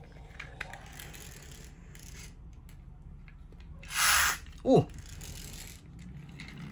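Toy fire truck's pull-back motor being wound: light gear clicking as it is rolled back on the mat. About four seconds in comes a short, loud whirr as it is pushed off, followed by a brief falling tone.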